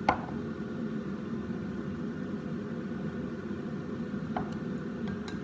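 A steady low mechanical hum from the kitchen, with a sharp knock just after the start and light metal clinks near the end.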